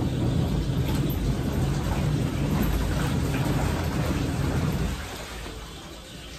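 Twin-tub washing machine running, a steady low rumble with churning water, which drops away about five seconds in.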